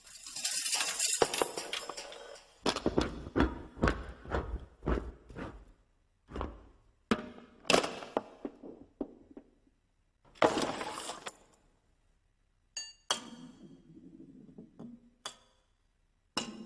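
Honda Accord car parts knocking into one another in a chain reaction: a scrape, then a run of clanks, knocks and rattles with short pauses between. About ten seconds in there is a longer scraping rattle, followed by ringing metal clinks and a low rolling rumble.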